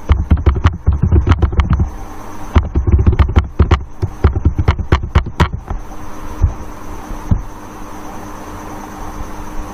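Laptop keyboard keys typed quickly in two runs with a short pause between them, as a password is entered. A couple of single key clicks follow, then a steady electrical hum with a faint hiss.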